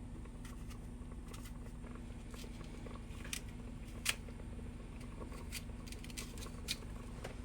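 Scattered light clicks and scrapes of a kitchen utensil, the sharpest about four seconds in, over a steady low hum.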